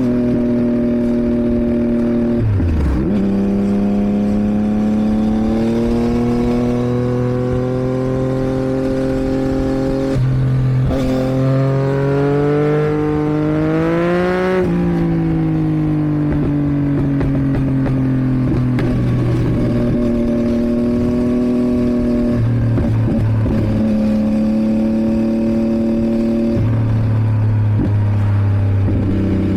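2022 Yamaha MT-09's 890 cc inline-three engine through a catalysed Roadsitalia aftermarket exhaust, pulling hard through the gears. The revs climb with gear changes about three and ten seconds in, peak near the middle, then fall away as the bike slows on a closed throttle, with more gear changes near the end.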